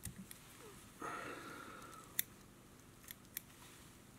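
Fine-pointed fly-tying scissors cutting through synthetic EP fibre, trimming a shrimp fly's belly flat: one longer cut about a second in, then three short, sharp snips, all faint.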